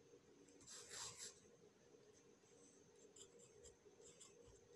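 Faint pencil scratching on paper: a longer stroke about a second in as a word is circled, then a run of short writing strokes near the end.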